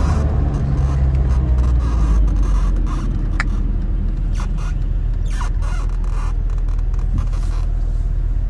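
Tofaş car's four-cylinder engine running through a loud aftermarket 'aragaz' exhaust, heard from inside the cabin while driving slowly. The low rumble eases off about two seconds in and settles to a steady, lower drone.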